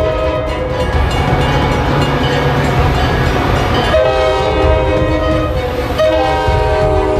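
Locomotive air horn sounding a chord of several notes that stops about a second in, then two more blasts starting at about four and six seconds in, over the steady low rumble of a moving train.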